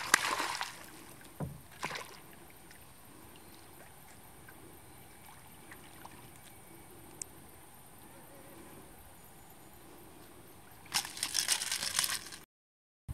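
A hooked Papuan black bass splashing at the surface beside the boat: one loud splash at the start and two smaller ones just after. About eleven seconds in there is a second, longer burst of thrashing and splashing as the fish is lifted clear of the water.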